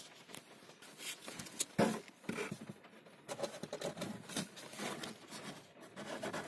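A new pleated cabin air filter and the plastic glovebox and filter-housing parts being handled: soft rustling and scraping with scattered light clicks, and one sharper knock about two seconds in.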